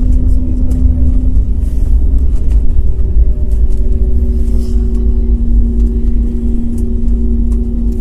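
Jet airliner heard from inside the cabin as it rolls along the ground after landing: a loud, steady low rumble from the wheels on the tarmac under a steady engine hum, whose pitch dips slightly about two seconds in.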